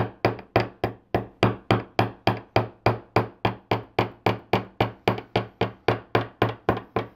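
Ball face of a jeweler's chasing hammer tapping copper wire on a steel bench block in a steady, even rhythm of about three sharp metallic strikes a second, hammer-texturing the wire; the strikes stop near the end.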